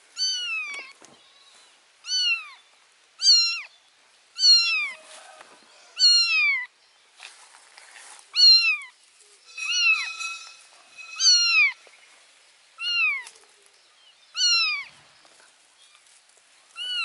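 A kitten meowing over and over, about one short, high call every second or so, each falling in pitch: the repeated crying of a baby cat calling for its mother.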